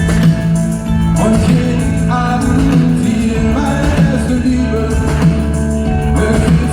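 A pop-rock band playing live, with a sung melody over sustained chords.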